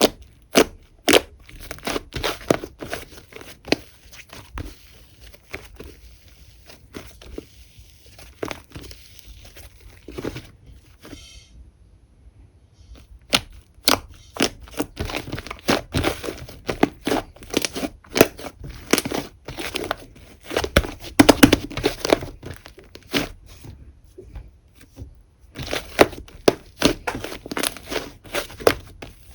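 Whipped-cream slime being squished and pressed by hand: a fast, irregular string of sticky crackling pops and clicks, with a short lull about twelve seconds in.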